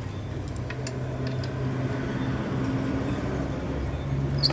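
A vehicle engine running with a steady low hum, with a few light clicks and one sharper click near the end.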